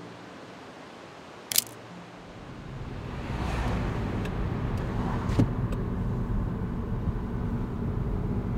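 A single camera-shutter click about a second and a half in over faint music. From about three seconds in comes the steady engine and road noise of a car driving, heard from inside the cabin, with a few light clicks.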